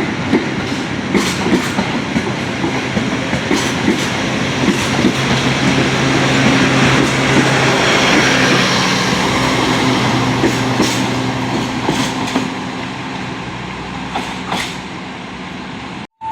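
A train rolling past, its wheels clicking over the rail joints over a steady low hum from its drive; it grows louder toward the middle, eases off, then cuts off suddenly just before the end.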